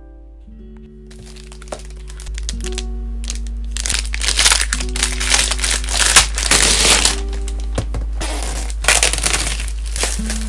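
Clear plastic shrink wrap crinkling and crackling as it is peeled off a hardcover book, starting about a second in and growing louder, over soft background music with held notes.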